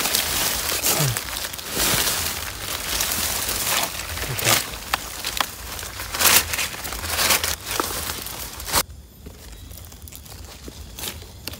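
Dry leaf litter crackling and rustling in uneven crackles, cutting off suddenly about nine seconds in.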